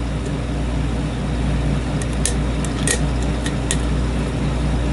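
Small sharp metallic clicks of a lock pick working the pins inside a challenge lock, a few scattered ticks around the middle, over a steady low background hum.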